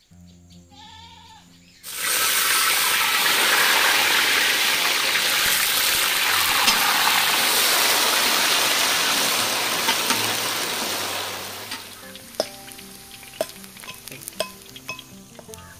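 Food sizzling in a pan of hot oil, a loud hiss that starts suddenly about two seconds in as the pieces go in and dies down after about ten seconds, followed by a few light clinks.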